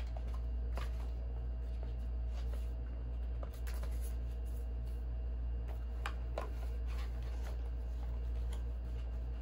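Paper and cardboard packaging rustling, with a few light taps, as a product box is handled and its folded paper manuals are leafed through, over a steady low hum.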